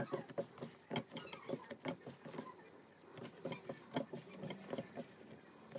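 Soft, irregular pats and taps, several a second, as chicken pieces are tossed and pressed by hand in dry flour to coat them.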